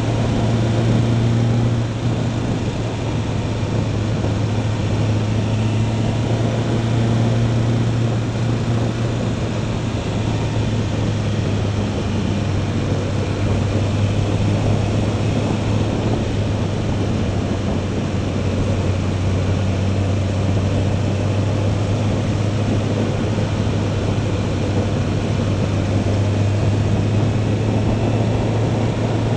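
Motorcycle engine running steadily at a constant cruising speed, a low even hum, with wind and road noise over it.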